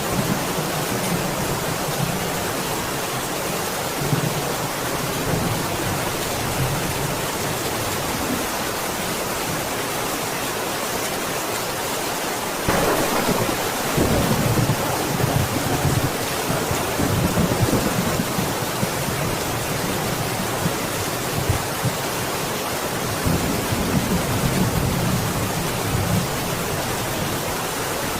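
Steady heavy rain with deep rolling rumbles that swell and fade. The rumbling rises suddenly about halfway through and comes back again near the end.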